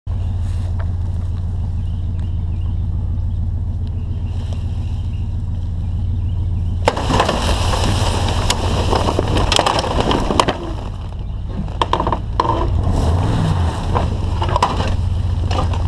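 Truck engine running with a steady low hum; about seven seconds in, a loud run of scraping, crunching and clattering begins as an above-ground pool's metal frame and vinyl liner are dragged and crushed, with sharp knocks scattered through it. Near the end, a pitch briefly rises and falls under the scraping.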